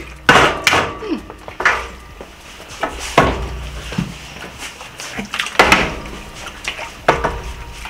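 A part-filled plastic drink bottle being flipped and landing on a glass tabletop: a series of sharp knocks, a second or more apart.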